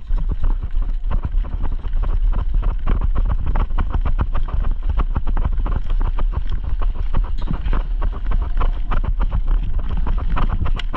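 Quick footsteps and rustling through woodland brush, many irregular steps and crunches, over a heavy low rumble of wind on a body-worn microphone.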